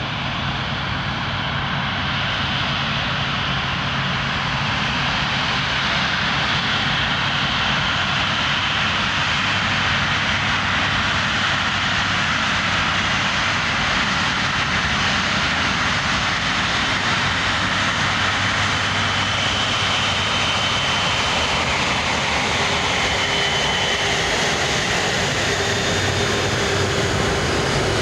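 Airbus A330's turbofan engines running: a steady jet roar with a high whine and a low hum, slowly growing a little louder, with a new lower tone joining near the end.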